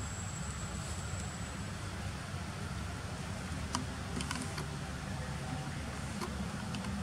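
Steady low rumble of outdoor background noise, with a thin high whine that fades out about two seconds in. A few light, sharp clicks follow a little past the middle.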